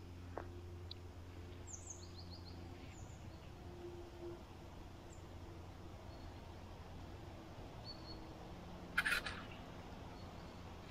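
Faint woodland ambience with a few short, high bird chirps about two seconds in. One brief crunch or rustle near the end is the loudest sound.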